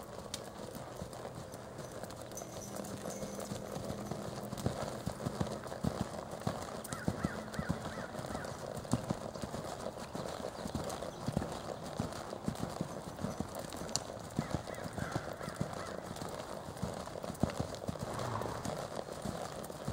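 Hoofbeats of a quarter horse gelding loping on soft arena dirt, a steady stream of dull knocks.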